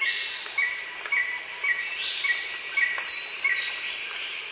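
Birds and insects: a bird repeats a short chirp about twice a second, with a few falling whistles around the middle, over a steady high-pitched insect drone.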